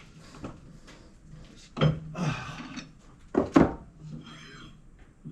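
Clunks and scraping of metal on metal as the steel bar stock is loosened in the lathe chuck and slid out, with two sharp knocks about two seconds and three and a half seconds in.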